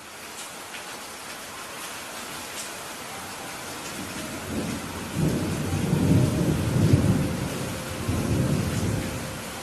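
Steady rain falling on a roof, with a long roll of thunder that builds about halfway through, peaks around two thirds in and then dies away.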